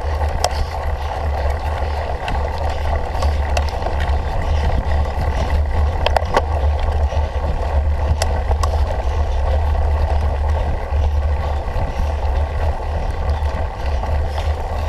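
Cyclocross bicycle being ridden in a race: a steady wind rumble on the microphone over tyre and drivetrain noise, with scattered clicks and rattles from the bike over rough ground.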